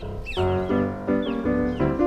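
Background music: a light silent-film-style piano tune of short, quickly changing notes, with a few short, high falling chirps over it.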